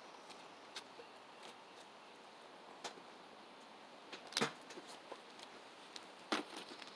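Quiet handling of grilling gear: a few light clicks and rustles, with two sharper clacks about four and a half and six and a half seconds in.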